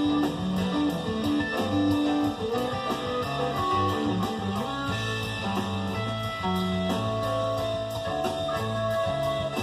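Instrumental music led by guitar, over a moving bass line and a steady beat.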